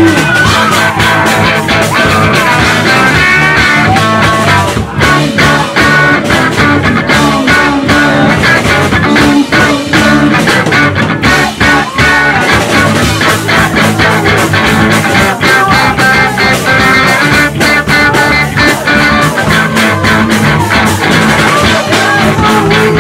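Live rock band playing: electric guitars through small amplifiers over a drum kit, with a steady driving beat.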